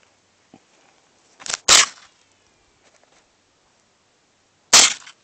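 Two rifle shots from a small scoped rifle, about three seconds apart, each a sharp crack that dies away quickly.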